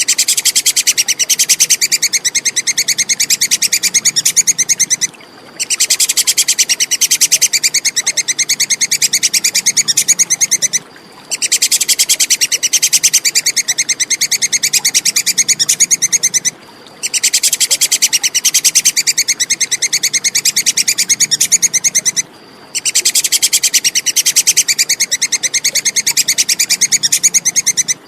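Tupai kekes squirrel's high-pitched chattering call, a fast train of sharp 'kek' notes. It comes in bouts of about five seconds split by short pauses, repeated evenly as a looped song-training track for songbirds.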